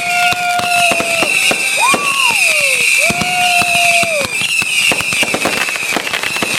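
Consumer fireworks finale going off in rapid succession: dense crackling and popping under a continuous high shriek. Several long whistles hold a steady pitch, then slide down.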